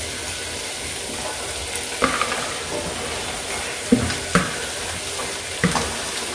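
Steady sizzling of a pan of aviyal vegetables cooking on the stove. From about two seconds in come four sharp knocks as a plastic plate is tapped against the pan's rim to tip in crushed coconut.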